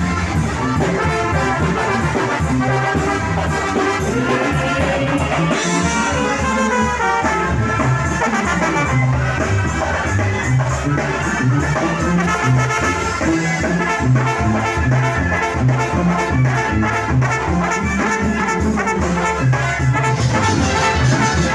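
Latin dance music with a brass section of trumpets and trombones playing over a steady bass beat.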